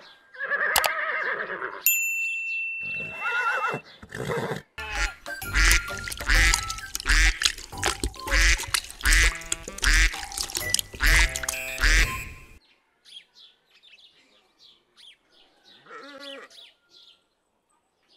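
A horse whinnying, then several seconds of music with a steady beat mixed with duck quacks. The music stops suddenly, leaving faint scattered sounds and a short call near the end.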